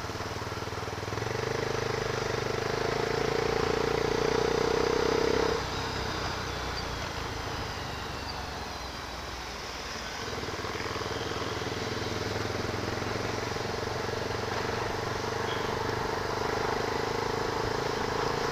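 Motorcycle engine running steadily under way. Its note drops away about five and a half seconds in and picks up again about ten seconds in.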